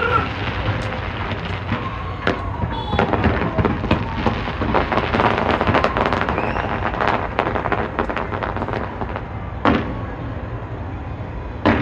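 Fireworks going off: a dense run of bangs and crackling, thinning out, with two louder single booms near the end, over a steady low rumble.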